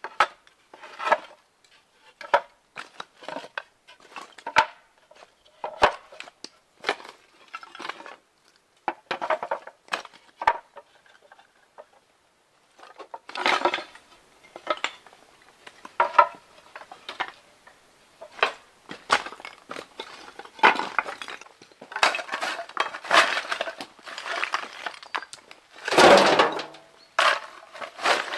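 Hard rubble clinking and clattering in irregular knocks, like pieces of glass, crockery or stone being handled and dropped. There is a short pause about twelve seconds in, and a louder crash near the end.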